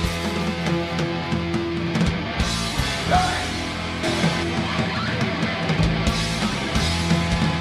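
Rock music with electric guitars and drums playing an instrumental passage between sung verses.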